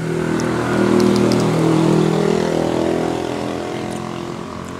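A motor vehicle's engine passing by, growing louder to a peak about a second or two in and then slowly fading.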